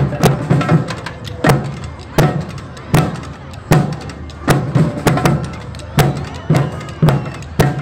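Street drumming troupe playing a steady rhythm: loud, sharp strikes roughly every three-quarters of a second over a repeating low drum pattern.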